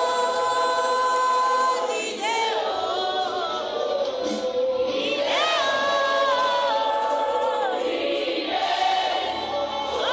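Worship singing by a group of voices, mostly long held notes that glide up and down between phrases.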